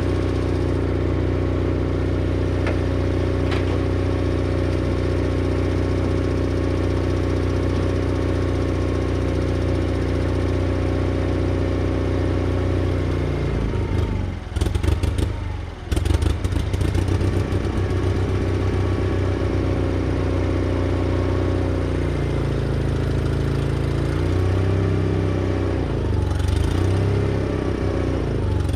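Case 1816C skid steer's gas engine running steadily at idle on half choke. About halfway through there is a short stretch of clatter with the level dipping, and near the end the engine speed sags and rises a few times.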